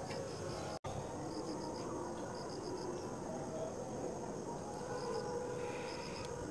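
Crickets chirping: short high chirps of three or four quick pulses each, repeating every second or so, over a steady background hiss.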